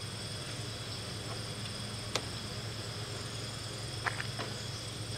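Steady high-pitched insect chorus of late-summer crickets chirring in the background, with a single faint click about two seconds in.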